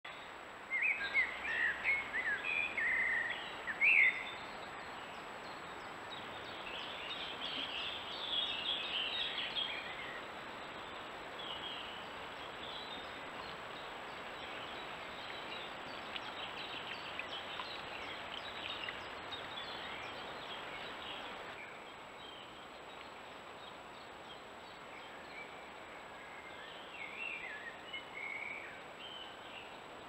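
Wild songbirds singing in woodland: loud twittering song phrases in the first few seconds, more song a little later and again near the end, over a steady background rush of outdoor ambience.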